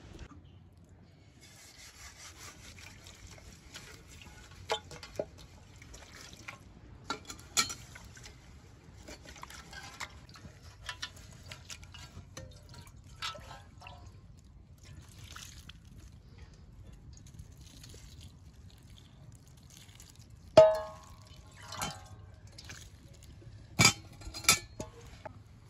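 Water poured from a kettle into a stainless steel basin, splashing and trickling with scattered light clinks. About twenty seconds in, one loud metallic clank rings briefly, followed by two more sharp knocks near the end.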